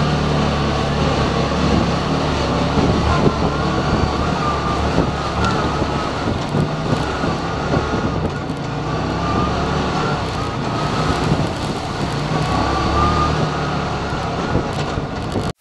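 Side-by-side UTV engine running steadily under way on a rough trail, heard from inside the open cab. A whine over the engine note rises and falls with speed, and the chassis keeps knocking and rattling over the bumps.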